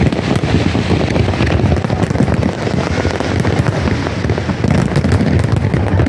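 Fireworks going off in a dense, unbroken crackle of rapid bangs.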